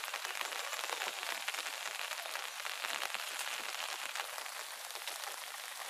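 Steady rain falling: an even hiss packed with many small drop ticks.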